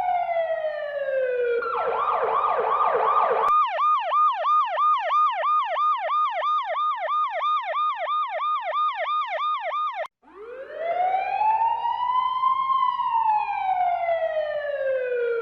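Electronic emergency-vehicle siren switching between modes: a slow wail falling in pitch, then a fast yelp of about four sweeps a second that cuts off abruptly about ten seconds in, followed by a slow wail that rises and then falls.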